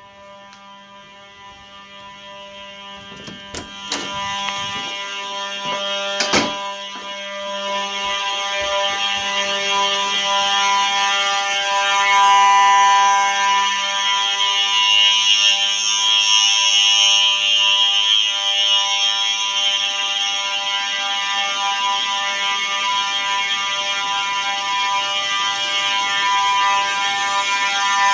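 Simplex 4903-9219 and 9236 fire alarm horns sounding together, a steady, continuous buzzy horn tone that grows louder over the first several seconds. A few sharp clicks come a few seconds in.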